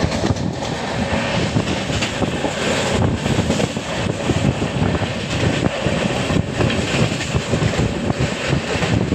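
A train in motion, giving a steady running noise.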